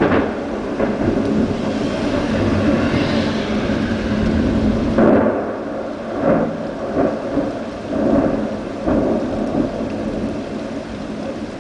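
Thunder rolling in a long low rumble, with a sharper clap about five seconds in followed by several shorter rumbles, over a steady hiss of rain.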